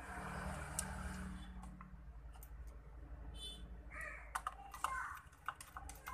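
Small screwdriver and plastic headset earcup housing clicking and scraping together as the headset is screwed back together: scattered light clicks, with a couple of brief squeaks about four to five seconds in.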